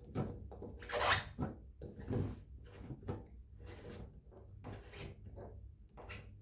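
Plastic scraping and knocking as a washing machine's drain pump filter is fitted back into its housing and turned, with the loudest scrapes about a second and two seconds in.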